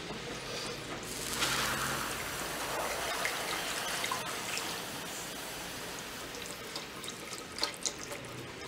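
Silicone whisk stirring milk into a roux in a saucepan, a steady liquid swishing as béchamel sauce is made, with two sharp clicks near the end.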